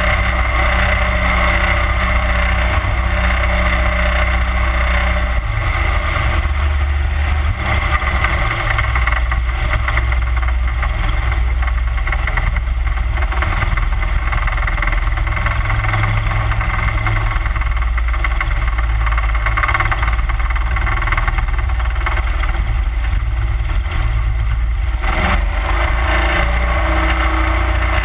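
31 hp Mudbuddy Hyperdrive mud motor running steadily at cruising speed on an aluminium boat, with water spraying off the hull; the engine note shifts slightly about five seconds in.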